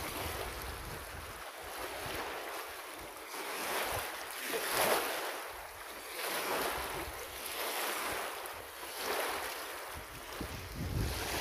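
Small waves washing against the shore in surges every second or two, with wind rumbling on the microphone.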